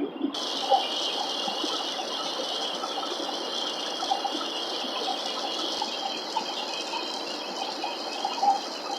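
Steady airliner cabin noise, a constant rushing hiss, with faint short chirps scattered through it.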